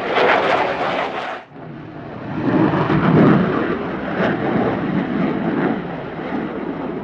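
Jet noise from a HAL Tejas fighter's single GE F404 turbofan as the aircraft manoeuvres, surging and fading. It cuts out abruptly about a second and a half in, then comes back deeper and louder.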